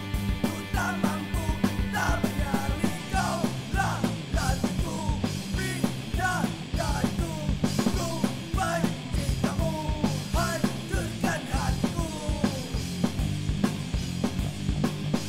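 Oi! punk rock song: sung vocals over a fast, driving drum beat and a steady bass line.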